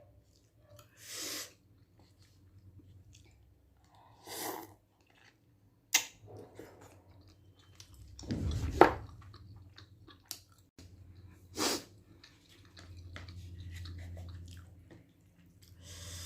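A person chewing Korean instant food: separate short mouth and chewing noises every couple of seconds, the loudest a longer burst a little past the middle.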